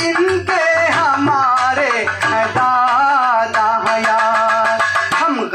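Live qawwali-style devotional music: a gliding melody with a quick, steady beat of hand-drum strokes.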